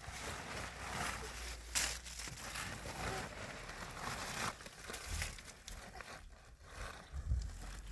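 Irregular rustling and crinkling handling noises, with a sharper crackle about two seconds in.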